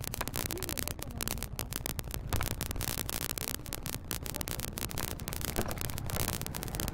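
Wind buffeting a microphone, a continuous rough, crackling rush over a low rumble.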